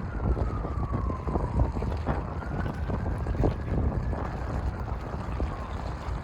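Faint wailing siren, its tone slowly falling and rising again, under steady wind buffeting the microphone.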